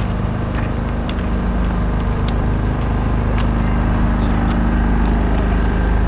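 Steady low rumble with a constant hum, and a few faint short clicks scattered through it.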